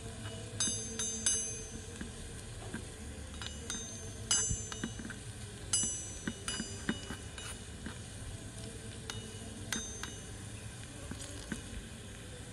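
Small metal spoon clinking and scraping against a miniature metal wok while stirring diced food frying in oil. The clinks come irregularly and ring briefly, over a steady faint sizzle.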